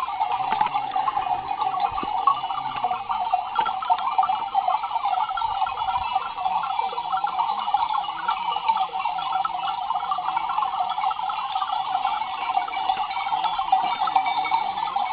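A grazing flock of sheep and goats: a steady jangle of many neck bells, with sheep bleating now and then.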